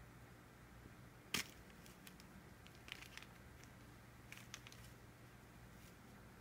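Near silence: quiet room tone with a faint steady hum. A single sharp click comes about a second and a half in, and a few fainter clicks and rustles follow near the middle.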